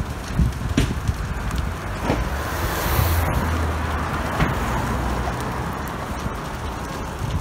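Large fire in a golf cart shed burning, with sharp pops and crackles over a low rumble, the loudest pops about one, two and four and a half seconds in.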